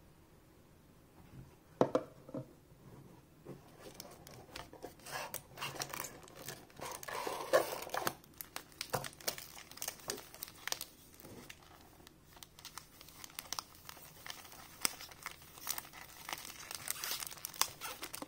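Foil-wrapped Magic: The Gathering booster packs crinkling and rustling as a stack of them is handled and shuffled in the hands. It starts with a single knock about two seconds in, and the crackling begins about four seconds in and goes on in irregular bursts.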